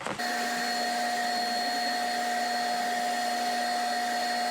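A machine running at a steady, unchanging pitch with a whirring hiss, starting abruptly just after the start.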